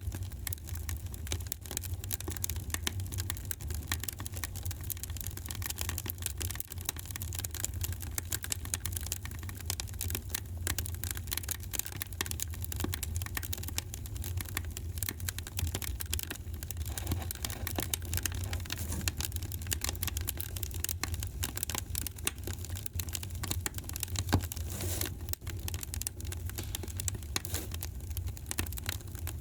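Wood fire crackling in a fireplace: a dense run of small crackles and snaps over a low, steady rumble, with one louder pop near the end.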